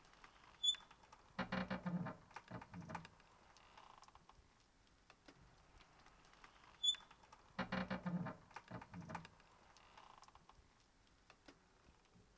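Wooden creaking and knocking from an old pipe organ's bellows and lever mechanism. It comes in two similar bursts about six seconds apart, each led by a short high squeak.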